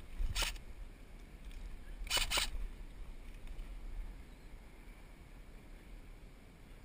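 Airsoft rifle firing: one shot about half a second in, then a short burst of a few rapid shots about two seconds in, over a low steady rumble.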